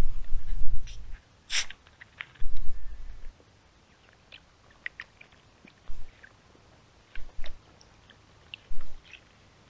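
Microphone buffeting in irregular low rumbling bursts, with scattered small clicks and ticks and one sharp click about a second and a half in.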